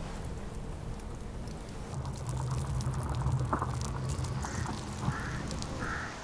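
A bird cawing three times, about once every 0.7 s, near the end, over a steady low rumble of wind with scattered crackles.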